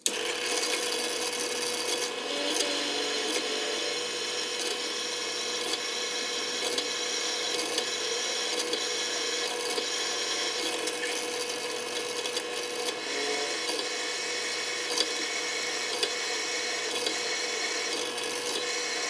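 Drill press running, its number 25 bit drilling tap holes for 10-24 screws into a machined metal part clamped in a vise. A steady motor tone lies under the scraping of the cut.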